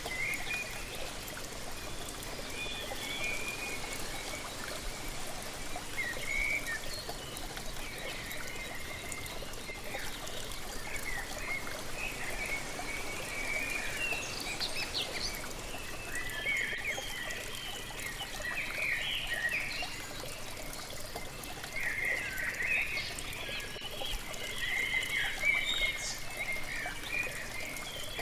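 Steady rush of a waterfall, with birds calling over it in many short chirps that come more thickly in the second half.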